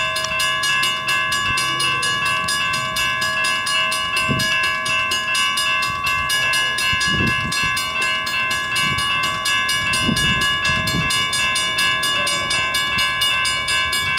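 Freight train cars rolling past. Several steady high ringing tones hold throughout, and heavy wheel thumps come about four times.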